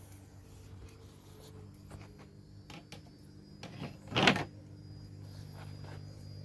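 Scattered small clicks and one loud, short knock about four seconds in, over a steady low hum.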